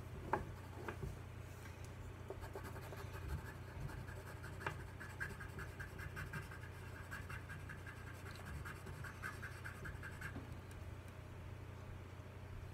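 Pencil scratching across paper in rapid short strokes, drawing short fur hairs. The strokes come thickest from about two seconds in until near the end, over a steady low hum.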